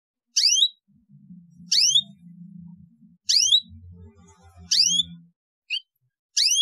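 Canary chirp call, a short rising chirp repeated about every second and a half, with a faint low hum underneath in the middle.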